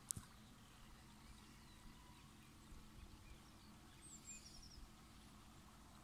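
Near silence: faint outdoor ambience with a small click at the start and a few brief, faint high chirps about four seconds in.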